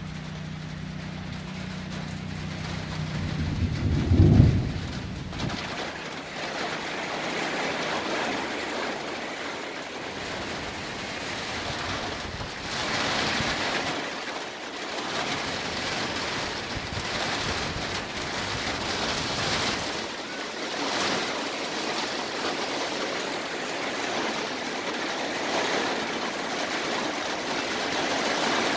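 Thunder rumbling low, peaking loudest about four seconds in. Then a thunderstorm's heavy rain sets in as a steady hiss that swells and eases in gusts.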